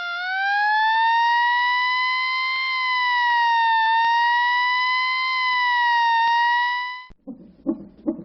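Emergency siren wailing, its pitch slowly rising and falling. It cuts off suddenly about seven seconds in, and a low rhythmic pulsing starts.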